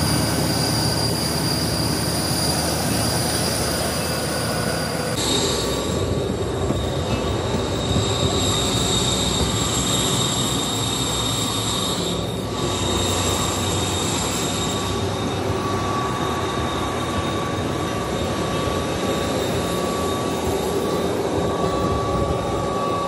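Jet airliner noise on an airport apron: a steady rushing roar with a high, steady turbine whine. About five seconds in the whine drops to a lower pitch, and the roar carries on.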